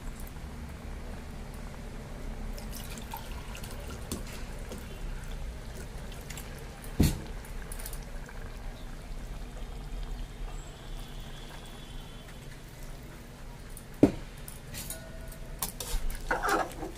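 Water moving in a pressure cooker full of rice and vegetables over a steady low background hum. It is broken twice by a sharp knock, about seven seconds apart, the loudest sounds.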